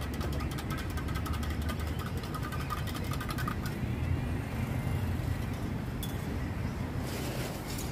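Steady rumble of road traffic from a busy city street, with a rapid ticking rattle in the first few seconds.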